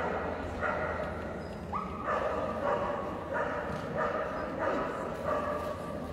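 A dog barking over and over, about one bark every two-thirds of a second, with one bark rising in pitch about two seconds in. A steady low hum runs underneath.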